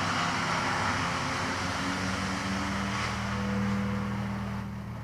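Wood chipper's engine running steadily in the background, a low drone with a hiss over it that eases off slightly near the end.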